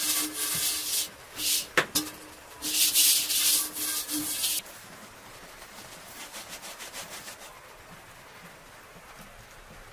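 Plastic jar handled with rubbing noises and one sharp click, then dry sugar poured from it in a hissing stream onto flour in a metal bowl for about two seconds.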